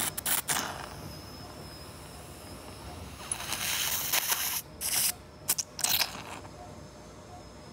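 Surgical suction cannula drawing clotted blood out of an acute subdural hematoma, with hissing, slurping suction in bursts. There is a short burst at the start, a longer steady one in the middle, then several quick gulps.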